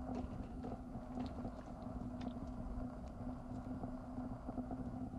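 Steady low mechanical hum and rumble with one constant tone, and a few faint clicks.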